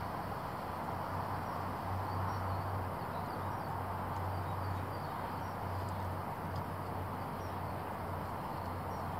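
Steady outdoor background noise, with a small bird chirping faintly and repeatedly.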